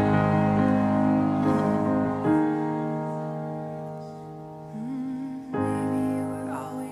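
Nord Stage 3 stage piano playing slow, sustained chords, each left to fade, with a new chord struck about two seconds in and another about five and a half seconds in.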